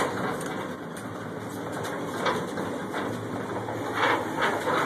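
Cable-hauled inclined tram car running along its track: a steady mechanical rumble, with a few short rattles about two seconds in and again near four seconds.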